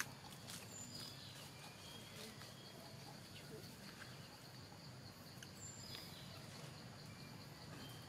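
Faint ambience: a steady high-pitched insect drone with a few short, faint bird chirps, and a brief tap right at the start.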